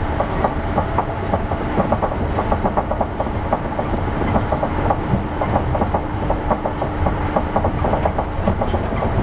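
Cabin running sound of a 200 series New Tram, a rubber-tyred automated guideway train, travelling at speed: a steady rumble with a rapid, regular clicking. A steady hum runs under it and stops about a second before the end.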